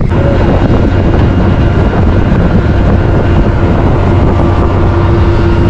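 Heavy construction machinery's diesel engine running loudly and steadily, with a steady whine that comes in more strongly about halfway through.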